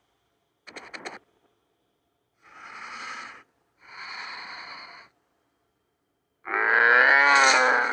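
Stegosaurus sound effects: a brief cluster of clicks, then two long breathy wheezing exhales. Near the end comes a loud, low bellowing call, its pitch dipping and rising.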